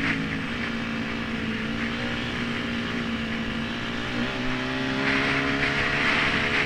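Yamaha WR250 dirt bike engine running at a steady speed, with wind rushing over the helmet-mounted microphone. The engine note dips briefly about four seconds in, and the wind grows louder from about five seconds in.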